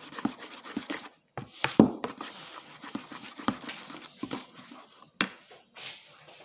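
A spoon knocking and scraping against a cup as cake batter is stirred, with irregular clinks, the loudest about two seconds in and again near the end.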